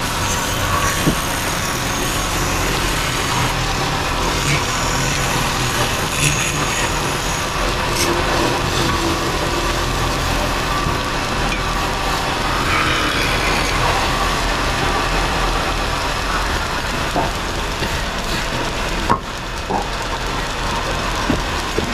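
Motor-driven wood lathes running, with hand chisels cutting turned wooden bed legs as they spin: a steady machine hum under the scraping of wood being shaved, with a few short knocks.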